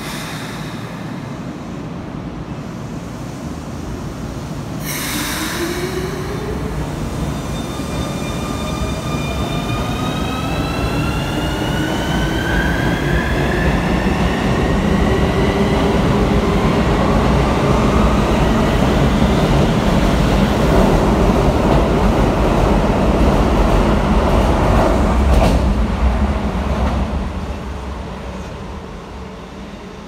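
Keikyu New 1000 series electric train pulling out of the station. A short hiss comes about five seconds in, then the traction motors' inverter whine rises in several stepped tones as it accelerates. The rumble of the wheels on the rails builds as the cars pass and fades near the end.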